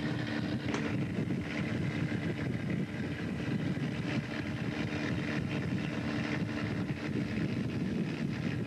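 Steady low rumble of a fishing boat under way, with a hum that fades about three seconds in and wind buffeting the microphone.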